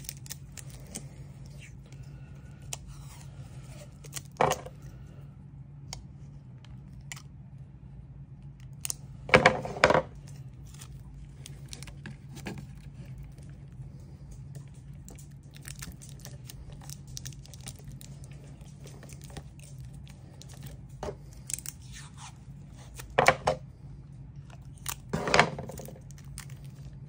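Kapton tape being pulled off the roll and torn into strips, with small clicks and rustles as it is pressed down over wires on a plastic panel. A few louder knocks and a steady low hum underneath.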